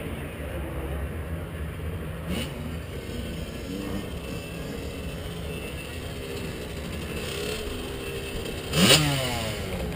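Motocross bike engine running, with a short rev about two seconds in and a sharper, louder rev near the end.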